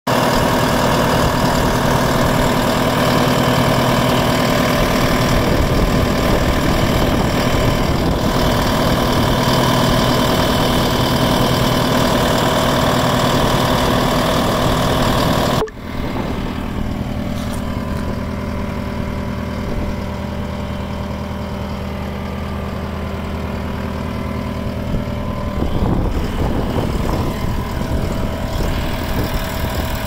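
Diesel engine of a 2013 Volvo MC110C skid steer loader running steadily. About halfway through, the sound cuts abruptly to a duller, quieter running hum, which grows a little louder in the last few seconds.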